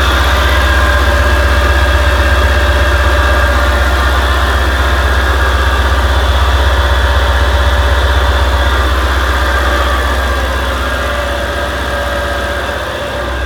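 Supercharged 4.2-litre V8 of a 2004 Audi S4 idling steadily shortly after a cold start, a deep hum under the VF supercharger's whirring. It eases off slightly near the end.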